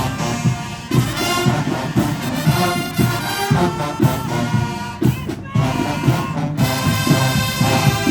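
HBCU marching band playing loud brass over a steady drum beat: trumpets and trombones holding chords with bass drum hits under them.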